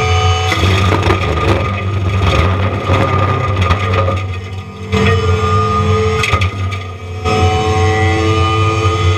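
Forestry mulching head on a John Deere 333E compact track loader grinding pine trees, over the loader's steady diesel engine. Wood cracks and splinters throughout, and the sound drops off briefly twice as the head comes off the wood.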